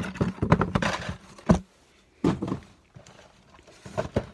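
Cardboard boxes and carded toy cars being handled: rustling and knocking of cardboard, with a sharp thud about one and a half seconds in and another a little later. Near the end, a few knocks as a cardboard box is set on a wooden floor.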